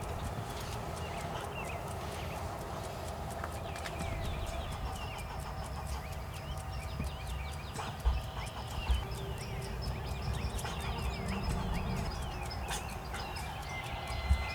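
Outdoor spring morning ambience: many short bird chirps and fine rapid clicking over a steady low rumble, with a couple of soft thumps about eight and nine seconds in.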